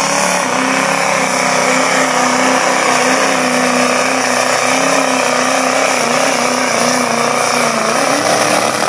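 Diesel pickup truck's engine running flat out under load as it drags a truck-pull sled, its note held high and steady with a slight waver.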